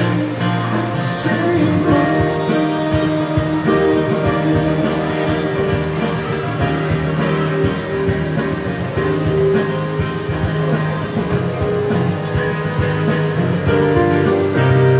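Live instrumental passage of a pop ballad on strummed acoustic guitar and a Korg Pa800 keyboard. The keyboard holds long sustained chords that change every couple of seconds, and the guitar strums steadily over them.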